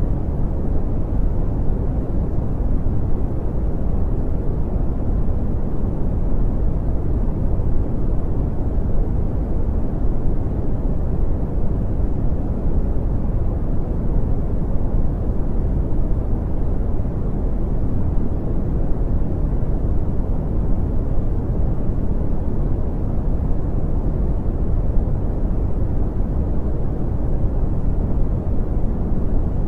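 Steady brown noise: an even, deep rumbling hiss, strongest in the bass and fading out toward the treble, unchanging throughout.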